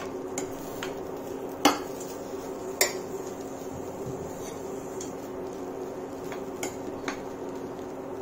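A cooking spoon knocking and clinking against a metal kadhai while the oats poha is stirred. There are two sharp knocks, at about one and a half seconds and about three seconds in, then a few lighter taps.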